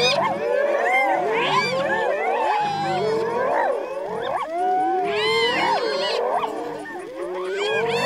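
A clan of spotted hyenas calling all at once: many overlapping calls sliding up and down in pitch, the excited din of hyenas mobbing lions at a kill.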